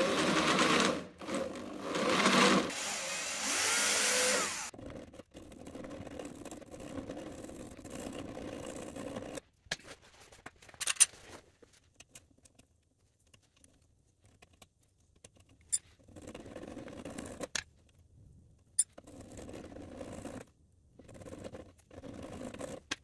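Cordless drill boring through the welded aluminium drain boss on a radiator's bottom tank, running in three short bursts over the first few seconds, then a quieter steady whir. After that a metal rod scrapes and clicks in the fresh hole, clearing out the aluminium chips.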